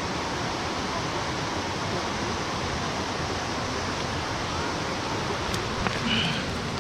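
Steady rushing of a mountain stream: an even hiss of flowing water, with a couple of small clicks a little before the end.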